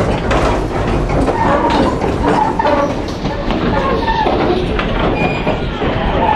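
Railroad passenger cars rolling over the track, heard from the open gangway between cars: a loud, steady rumble of steel wheels on rail, with clatter and brief high wheel squeals.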